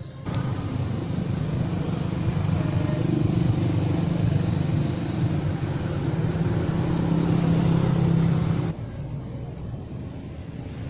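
Motorbike engine running steadily with a low, even hum. It starts suddenly just after the start and cuts off suddenly about three-quarters of the way through.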